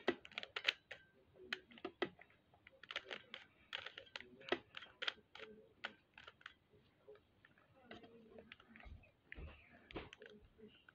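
3x3 Rubik's cube being turned by hand: rapid, irregular plastic clicks and clacks as the layers are twisted, with short pauses between runs of turns.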